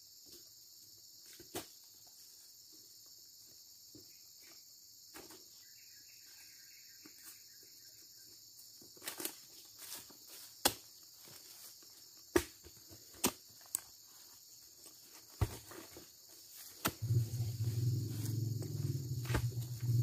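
Insects chirring steadily at a high pitch, with scattered sharp knocks and taps through the middle. About seventeen seconds in, a small engine starts running with a steady low hum, the loudest sound here.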